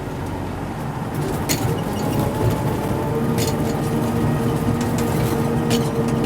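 DT-75 crawler tractor's diesel engine running with a steady drone, with a few sharp metallic clanks; a steadier, higher hum joins about halfway through.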